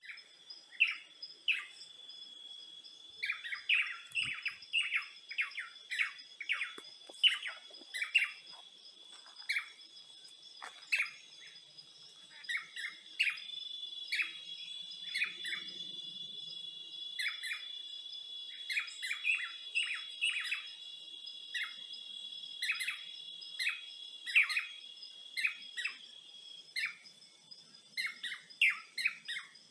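Songbirds chirping in quick repeated short notes, with a steady high-pitched insect trill running underneath.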